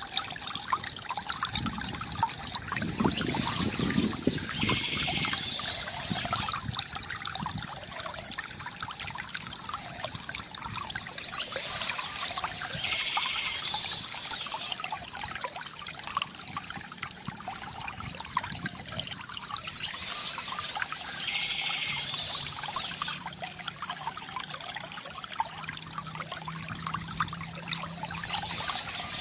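Stream water trickling and burbling steadily over stones, with a brighter, hissier rush recurring about every eight to nine seconds.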